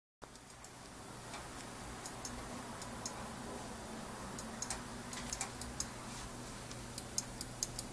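Computer mouse clicking as a small child draws with it: light, irregular clicks that come more often in the second half, over a faint steady hum.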